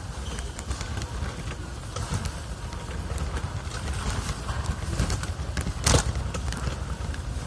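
Plastic shopping cart rolling over a supermarket floor: a steady low rumble with small rattles, and one sharp clack about six seconds in.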